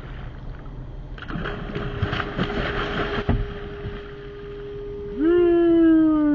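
A king mackerel thrashes and splashes at the surface as it is gaffed. Near the end comes a loud, drawn-out shout from a man, sliding slowly down in pitch.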